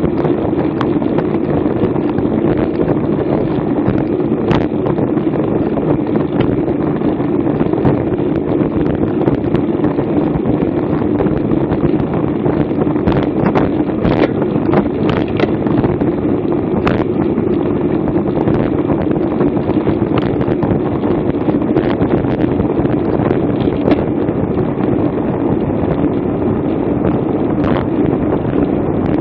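Steady wind noise rushing over the microphone of an action camera on a road bike at race speed, with a few short sharp clicks scattered through it.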